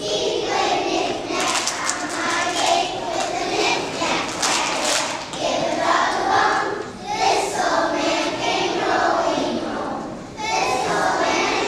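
A group of young children singing together in unison, with a short break about ten seconds in before the singing starts again.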